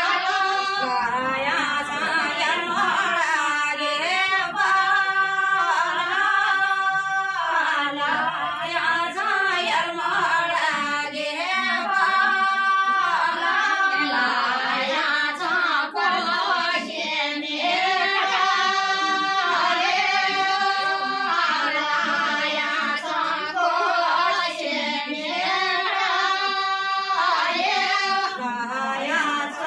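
A group of women singing a Garhwali mangal geet together, unaccompanied: a wedding ritual song of the kind sung at kanyadaan, in repeated sung phrases of a few seconds each.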